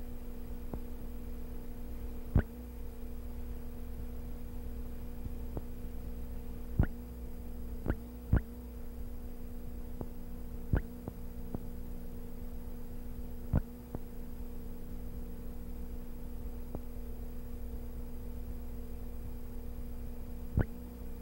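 Steady electrical hum with sharp clicks at irregular intervals, about seven in all.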